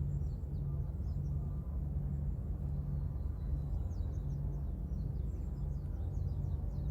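Small birds chirping and twittering faintly in short, quick calls, over a steady low rumble with a low hum that comes and goes about once a second.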